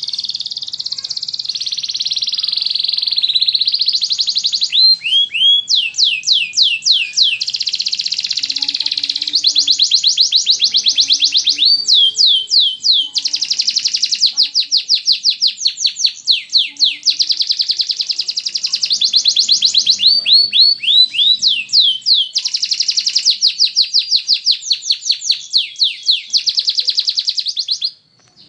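Domestic canary singing one long continuous song of rapid trills and repeated quick falling notes, stopping just before the end.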